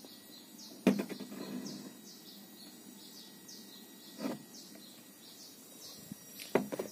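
Faint high-pitched whine from a dead Polytron Uslim CRT television's switching power supply, heard as short chirps repeating about twice a second. It is the symptom of a collapsed B+ supply, which the technician traces to a shorted horizontal output transistor. A couple of soft knocks sound near 1 s and 4 s.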